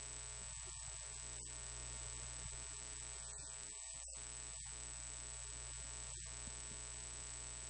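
Steady electrical hum with a constant high-pitched whine and a faint static hiss, unchanging throughout.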